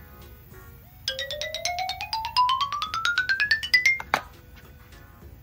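A quick rising run of pitched, chime-like notes, about ten a second, starting about a second in and climbing steadily in pitch for about three seconds, ending in a short sharp stroke; soft background music runs under it.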